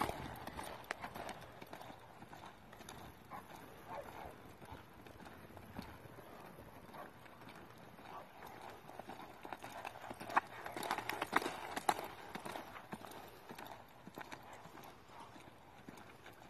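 Hoofbeats of a ridden horse loping on a soft dirt arena, a run of dull thuds that grows louder about ten to twelve seconds in as the horse passes close, then fades.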